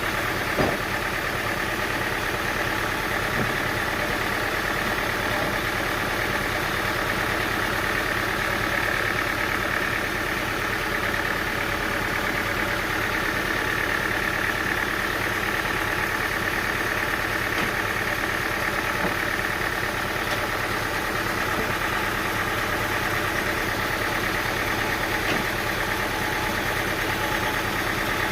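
An engine running steadily at idle, with one short knock about half a second in.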